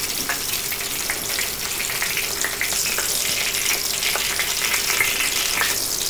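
Batter-dipped bread slices spread with chicken mince shallow-frying in hot oil in a nonstick pan: a steady sizzle with fine crackling, three to four minutes into frying the first side.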